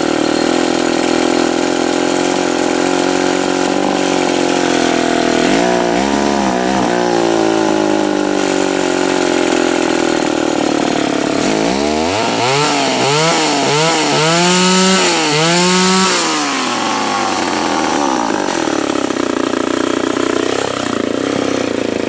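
Remington SL-11 A two-stroke chainsaw running after its repair, idling steadily and revved up and back down in throttle blips: a couple about six seconds in, a quick run of about five around the middle, and one more near the end.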